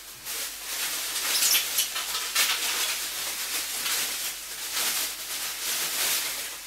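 Plastic bubble wrap crinkling and rustling as it is pulled off and bunched up by hand, with irregular louder crackles.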